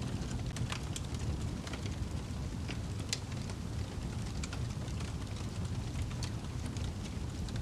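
Wood fire in a fireplace crackling: irregular sharp pops and snaps over a steady low rumble of flame, with one louder pop about three seconds in.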